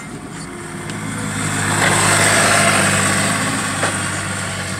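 A motor vehicle passing, its tyre and road hiss swelling to a peak about two seconds in and then fading, over a steady low engine hum.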